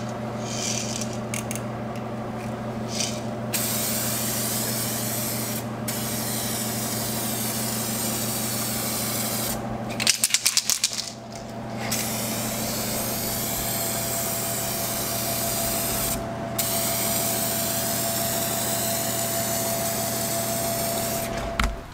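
An aerosol can of 2K clear coat spraying with a steady hiss in long passes, broken by a few brief pauses. About halfway through the spraying stops for a short burst of rattling as the can is shaken. A steady low hum runs underneath.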